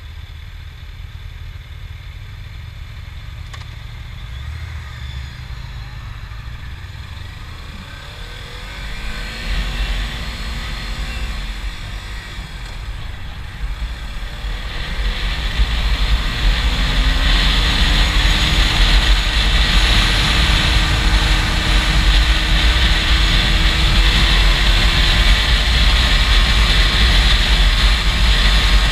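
Motorcycle engine running quietly at first, then pulling away and speeding up, its pitch rising. From about halfway on, wind rushing over the camera microphone grows loud and steady and largely covers the engine.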